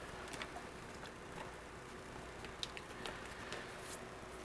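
Faint, scattered small clicks and taps of test leads, clips and wires being handled on a workbench, over a low steady hum.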